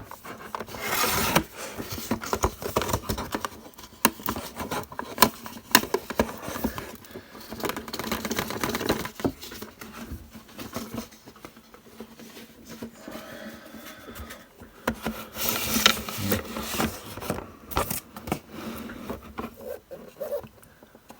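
Irregular clicks, taps and scrapes of a model truck's display case being handled and opened by hand.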